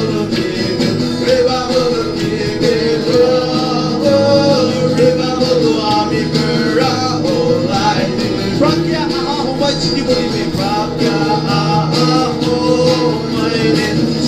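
Live worship song: voices singing over a strummed acoustic guitar and an electric guitar, with a steady rhythm.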